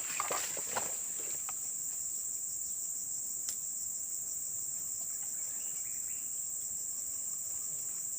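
Steady, high-pitched insect chorus droning without a break, with a few brief rustles and knocks in the first second or so.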